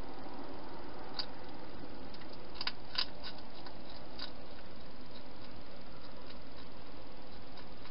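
A European hedgehog eating at a bowl: a few small sharp clicks, clustered about three seconds in, over a steady hiss.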